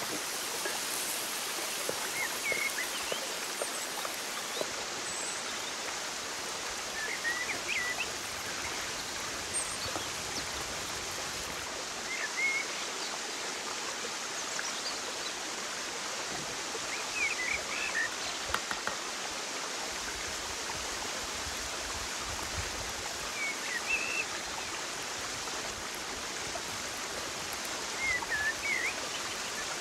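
Steady rushing of a running stream, with short bird chirps every few seconds.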